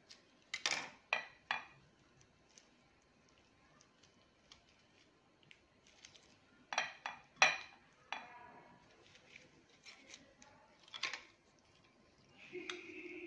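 Kitchen knife and dried figs clicking and tapping against a ceramic plate as the figs are cut open, a few sharp knocks at a time with quiet in between.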